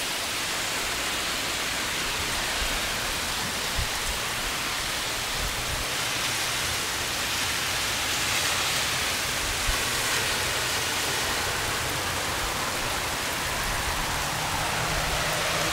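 Steady rain coming down hard, a dense, even hiss with no break.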